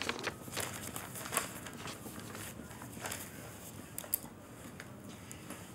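Footsteps: a series of irregular taps and scuffs, the loudest about a second and a half in and again just after four seconds.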